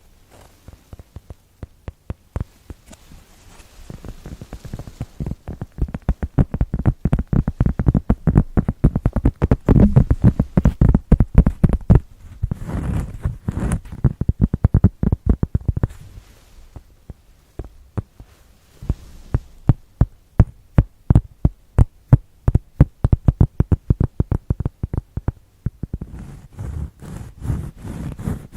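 Fingertips tapping rapidly on an ASMR trigger surface, in quick runs of crisp taps a few per second, broken by short pauses.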